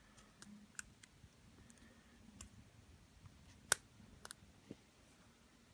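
Silverline pin-tumbler padlock being picked with a lock pick and tension wrench: scattered faint, sharp metallic clicks as pins set. One click, about two-thirds of the way through, is louder than the rest. The picker is working on and off the tension to get the security spool pin to set.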